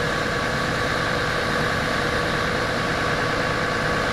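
Engine running steadily at constant speed: a continuous drone with a steady whine over it, unchanging throughout.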